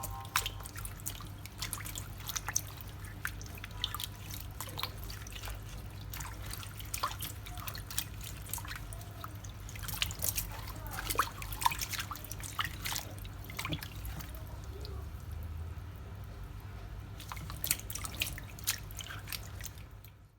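Irregular drips of liquid and small clicks, scattered unevenly, over a low steady hum.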